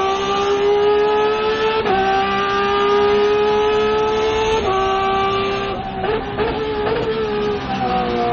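Racing car engine at high revs, pulling through the gears: the pitch climbs steadily and drops sharply at upshifts about two seconds in and again near five seconds. Around six to seven seconds in come quick throttle blips on downshifts, and then the revs fall away.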